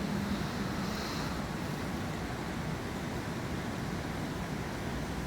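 Steady storm wind from Hurricane Matthew, rumbling low and even on the microphone.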